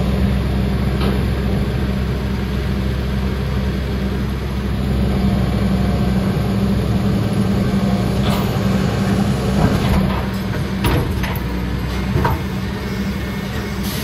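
Skip-loader lorry's diesel engine running steadily while its hydraulic lifting arms lower a loaded skip onto the bed. A few sharp knocks come in the second half.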